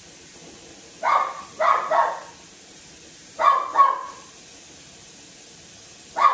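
Dog barking in short bursts: three barks about a second in, two more a couple of seconds later, and another burst starting right at the end.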